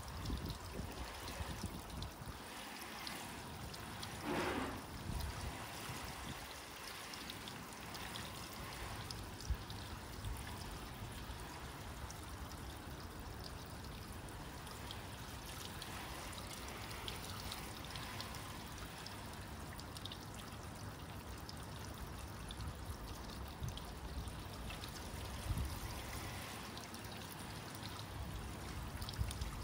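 Water from a garden hose shower nozzle spraying over a car's bodywork and windscreen and splashing onto concrete: a steady hiss of running, splashing water.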